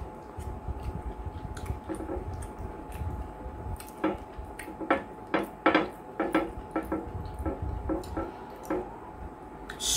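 Wet, squelchy eating sounds: chewing and lip smacks as a man eats banku and slimy okro soup by hand, with his fingers working through the soup. The clicks and smacks come irregularly, thickest in the second half.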